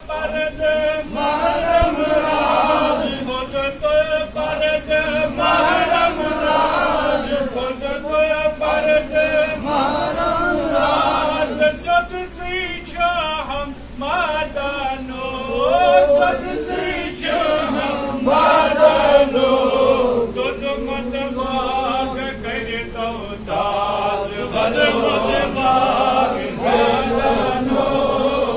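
A man reciting a Sufi devotional poem (kalam) in a melodic chant, with long held notes and winding pitch.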